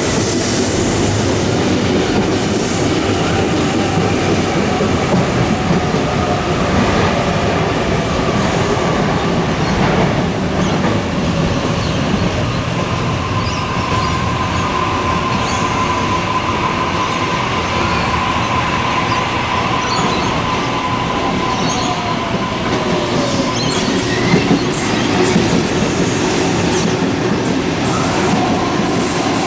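Sydney Trains Waratah double-deck electric train running past the platform: a steady rumble of wheels on rail with a whine in the middle and a tone that falls about two-thirds of the way through. Near the end the wheels click over rail joints.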